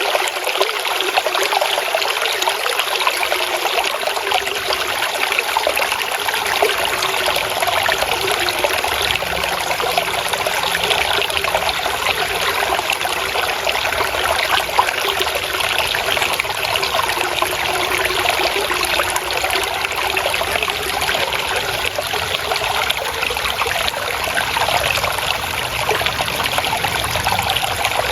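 Water flowing and trickling steadily, an unbroken splashing without pauses.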